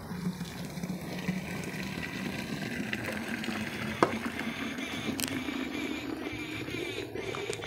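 Cow's milk poured in a steady stream from a brass bucket into a plastic milk can, the splashing rising slowly in pitch as the can fills. One sharp click about halfway through.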